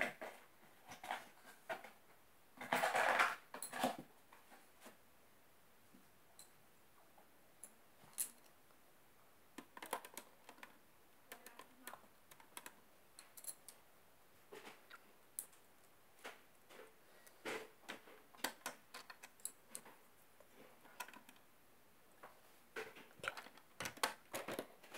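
LEGO plastic bricks clicking and clattering as hands fit and pull pieces on a build: irregular light clicks, with a denser rattle about three seconds in.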